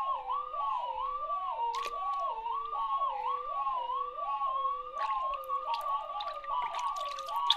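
Two synthesized electronic tones, one near 1 kHz and one lower, each sweeping up and down in pitch over and over like a wavering siren. Their pitch is driven by two water-level sensors as the water in the basin sloshes against them. Near the end the upper tone holds steady while the lower one keeps wavering, with some light splashing of water.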